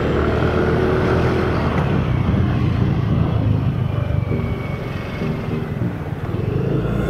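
Yamaha Mio Soul i 125 scooter's single-cylinder engine and CVT running while riding, its drive freshly fitted with a 1000 rpm clutch spring and 12 g rollers. The engine note eases off about five seconds in and picks up again near the end.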